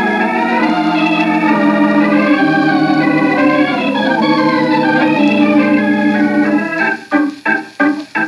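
Organ music bridge between scenes of an old-time radio drama: sustained, shifting organ chords that, about a second before the end, break into short, quickly repeated strokes.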